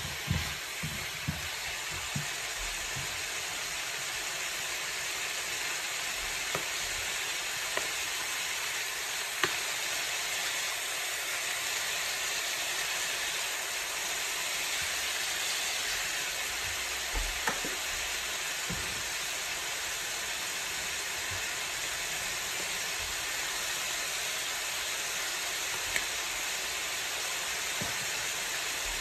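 Sliced bell peppers, onions and ground meat sizzling steadily in a skillet, with a few knocks of a wooden spatula against the pan near the start and a few single knocks later.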